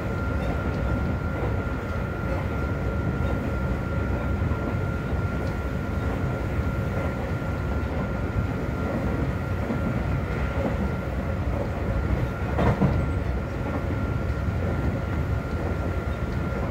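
Cabin running sound of a Seibu 40000 series electric train (Toshiba IGBT-VVVF drive, permanent-magnet motors) under way between stations: a steady rumble of wheels on the track with a thin steady high tone running through it. One louder knock comes about three-quarters of the way through.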